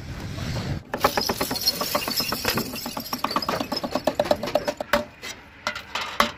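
Decorative hanging metal chains on a truck bumper jangling as they swing. The clinks come rapid and dense at first, then thin out toward the end.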